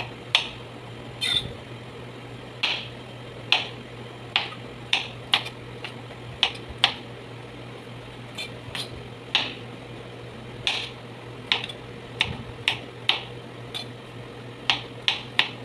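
A kitchen knife chopping squash on a cutting board: irregular sharp knocks, one or two a second, with a short pause midway. A steady low hum runs underneath.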